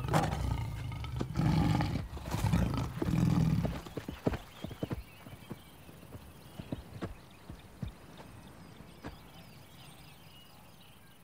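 Hooves of large hoofed animals galloping. For the first four seconds there are three loud, low rumbling stretches, then single hoof thuds that grow sparser and fade out.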